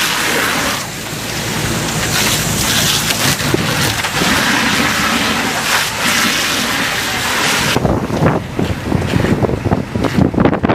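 Strong wind rushing loudly and buffeting the microphone; about three-quarters of the way in the steady rush gives way to gustier, lower rumbling with irregular jolts.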